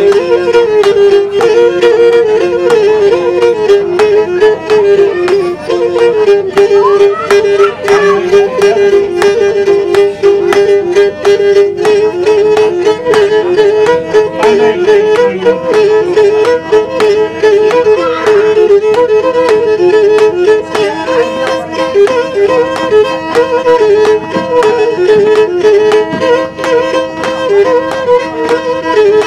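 Pontic lyra (kemenche) bowed solo, playing a quick ornamented melody over a steady drone note, with no singing.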